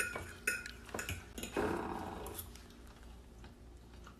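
Cutlery clicking lightly against dinner plates, a few sharp clinks in the first second and a half, then a short rough noise lasting about a second.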